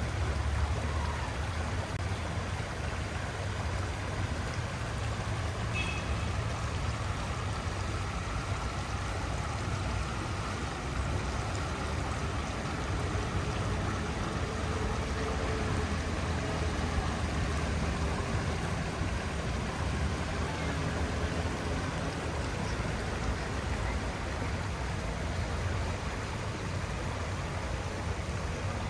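A stream flowing: a steady, unbroken rush of running water with a deep low rumble beneath it.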